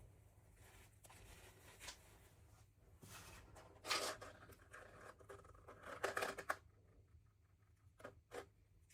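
Packaging being handled and opened by hand: bursts of rustling and tearing, loudest about four and six seconds in, then two short clicks near the end.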